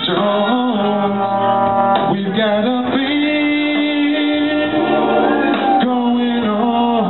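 A man singing into a microphone, holding long notes.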